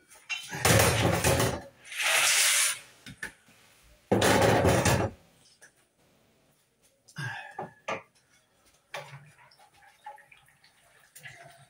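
Kitchen pot sounds: a metal lid lifted off a steel saucepan and set down on the stove, with three loud rushes of noise, each about a second long, in the first five seconds. Then a few sharp knocks as a wooden fork stirs in the pot.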